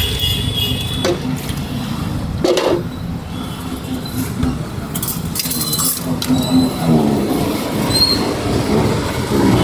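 Steady rumble of road traffic, with a few sharp clinks of a steel ladle against a pot and a steel plate as curry is served.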